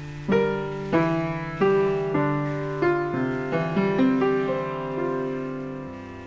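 Background music: a slow piano melody, single notes struck one after another, each ringing out over a held lower note.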